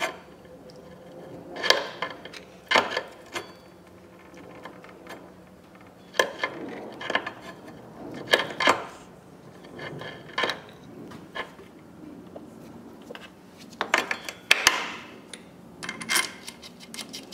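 Screwdriver levering the pads back into a motorcycle's Tokico front brake caliper: irregular metallic clicks and short scrapes of steel on the pads and caliper, with one longer scrape near the end. The pads are being pushed back so the pistons force fluid and trapped air back up to the reservoir.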